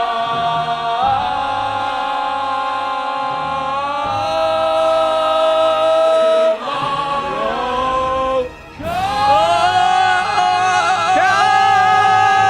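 A high, soprano-range voice singing long held notes that slide from one pitch to the next. About two thirds of the way through there is a brief break, then a new sustained note.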